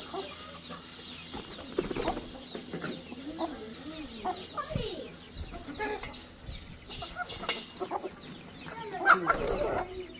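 Aseel chickens clucking, while mustard seed patters from a plastic bag into a steel bowl. About nine seconds in, a chicken beats its wings loudly beside the bowl.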